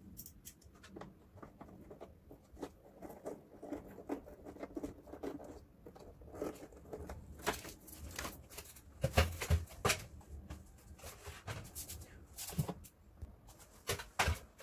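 Scattered small clicks and knocks of hands and a screwdriver working on the plastic casing of a Daikin wall-mounted air-conditioner indoor unit during reassembly, with a cluster of louder knocks about nine seconds in.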